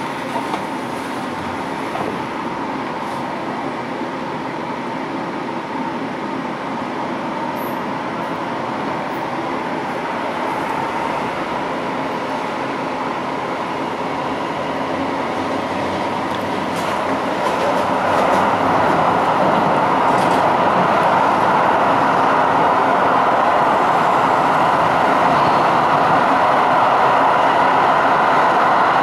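Inside a Düsseldorf Stadtbahn light-rail car as it pulls away from a stop and runs along the line: continuous rolling and running noise. It grows louder a little past halfway and stays so.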